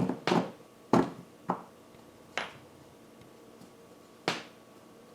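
Plywood discs being handled and knocked together on a bolt while they are lined up: about six sharp, irregular knocks, the loudest about a second in.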